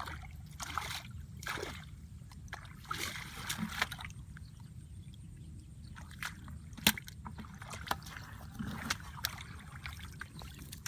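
Water sloshing and splashing in irregular bursts, with scattered small clicks and one sharp knock about seven seconds in.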